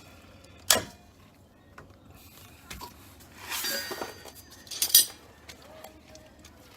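Metal clicks and clinks from locking pliers (vice grips) being clamped onto a brake caliper bolt's lock nut: a sharp click about a second in, a short scraping rattle past the middle, and another sharp click near the end.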